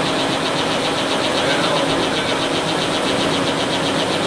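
Lathe running with its levers engaged: a steady hum with a fast, even whirring rhythm from the turning spindle and gears.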